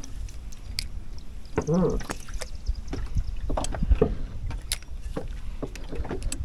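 Water lapping against a small fishing boat's hull under a low rumble, with scattered light clicks and knocks as a spinning rod and reel are handled while fishing. A short vocal sound about two seconds in.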